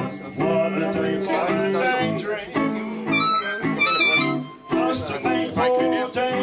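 Live music: an instrumental passage led by acoustic guitar, with bright, high held notes from a second instrument coming in about three seconds in.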